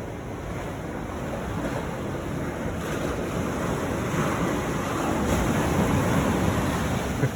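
Ocean surf washing onto the beach, with wind buffeting the microphone; the noise swells louder over the second half.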